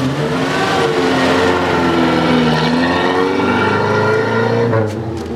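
Pickup truck engine revving as the truck pulls away, its pitch rising and falling through the gears, stopping sharply near the end.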